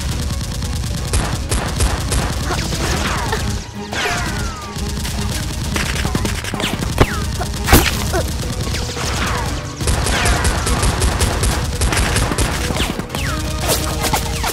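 Dubbed automatic-gunfire sound effects: rapid shots in three long strings, mixed with falling whistling zips of passing rounds, and one louder single bang a little before eight seconds in.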